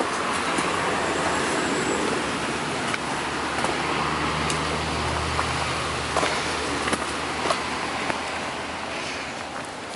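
Running footsteps crunching on a dry leaf- and stone-covered forest path, as scattered sharp ticks over a steady rushing noise. A low motor-vehicle hum comes in about a third of the way through and fades near the end.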